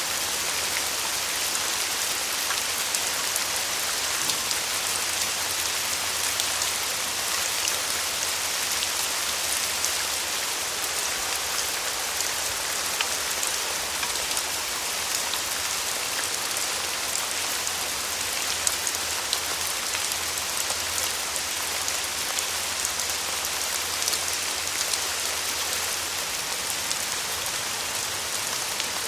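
Steady rainfall: an even hiss of rain with many small drops ticking on a surface.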